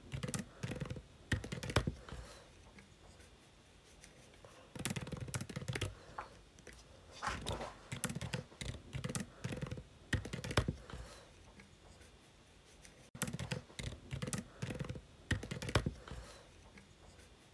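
Computer keyboard typing in several short runs of keystrokes, with pauses between them.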